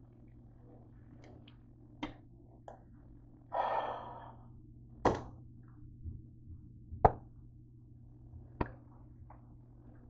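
Sharp knocks and clinks of cookware and utensils being handled, about five spread over several seconds, with a short rushing scrape about three and a half seconds in, over a faint steady low hum.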